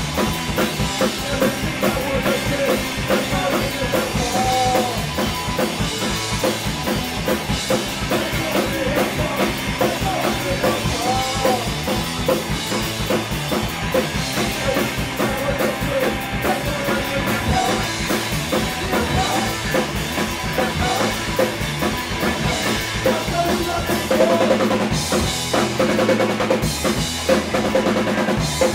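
Live rock band playing mid-song: a drum kit hammering bass drum and snare under electric guitars and bass.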